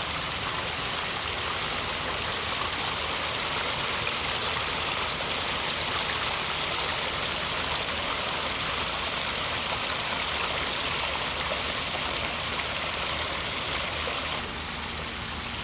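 Pondless waterfall running steadily: water splashing and trickling down over the rocks, a little quieter near the end.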